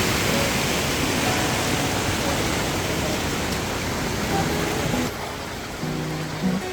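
Loud, steady rush of falling water from a waterfall. It cuts off abruptly about five seconds in, leaving a quieter stretch with a few short pitched tones.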